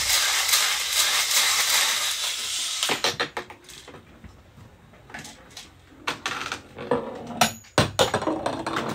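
Toy spinning top whirring and rattling as it spins on a plastic arena, stopping after about three seconds. Then scattered clicks and knocks of plastic toy parts being handled, with one sharp knock near the end.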